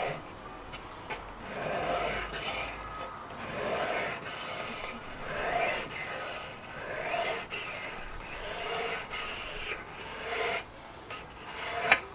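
A whetstone on a KKMoon fixed-angle sharpener's guide rod is stroked across a clamped kitchen knife's edge: a gritty rasp repeated about every second and a half as the stone grinds metal off the edge and raises a burr. There is a sharp click near the end.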